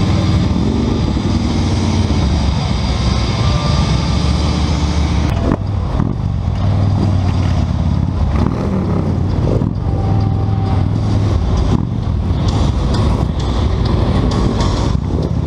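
Harley-Davidson motorcycle V-twin engines running steadily at low speed, heard up close from one of the moving bikes.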